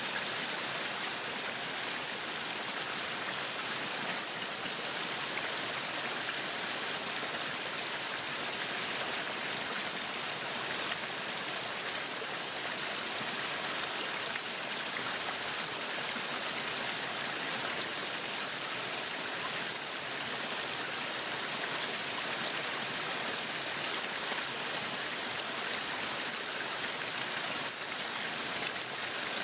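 Meat sizzling on a yakiniku grill, a steady dense hiss.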